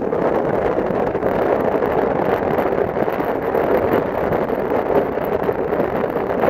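Steady wind rush and road noise from a moving car, with wind blowing over the microphone.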